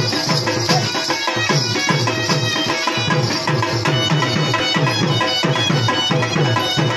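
Loud folk-style drumming with a fast, steady beat: low drum strokes that drop in pitch, about four a second, with higher percussion and melody over them.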